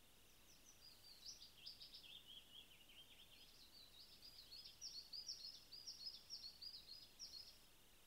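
A songbird sings faintly, one long song of rapid chirping notes lasting about seven seconds. The song dips lower in the middle and then runs on higher and a little louder.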